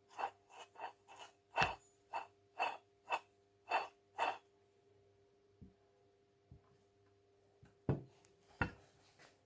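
Lexus IS 250's 2.5-litre V6 engine running with a faint steady whine under a series of sharp, irregular clicks, about two a second for the first four seconds, then only a few scattered ones; the noise comes from a damaged water pump.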